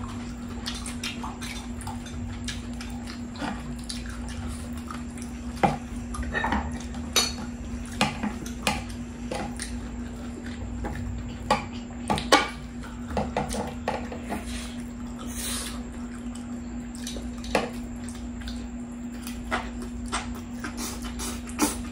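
Metal tongs clicking and scraping against ceramic plates and an electric griddle pan, mixed with chewing of saucy food, in scattered sharp clicks over a steady low hum.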